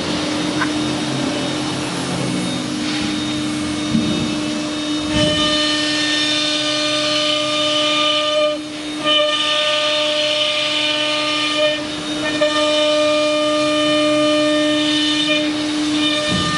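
ATC CNC router's spindle running with a steady hum, and from about five seconds in its cutter routing a wooden sheet with a high whine and a cutting hiss that eases off briefly twice.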